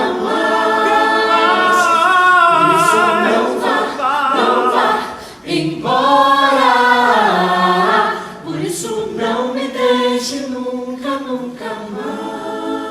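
Several voices singing together a cappella, long held notes with a waver of vibrato and short breaths between phrases.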